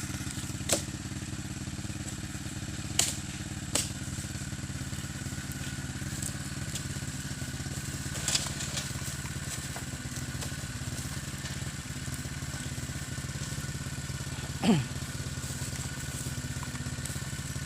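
Small engine of a grakula, a motorised oil-palm fruit hauling machine, running steadily. A few sharp knocks stand out over it, and a brief sound falls in pitch near the end.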